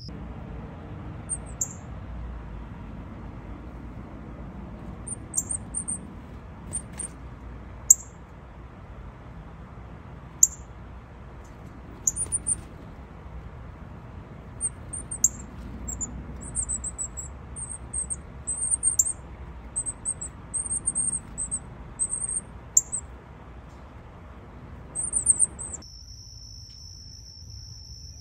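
Northern cardinal nestlings cheeping: thin, high chirps, single and scattered at first, then in quick runs, over a low steady background rumble. Near the end the sound cuts to a steady high insect trill.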